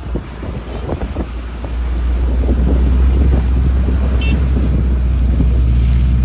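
Jeep's engine and tyres running on a wet road, heard from inside the vehicle as a steady low rumble with wind on the microphone; it gets louder about two seconds in. A few knocks in the first second come as it goes over the broken, potholed tarmac, and a short high beep sounds about four seconds in.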